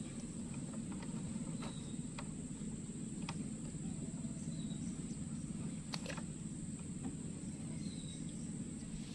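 Steady high-pitched insect trill over a low even hum, with a faint short chirp every few seconds and a few light clicks.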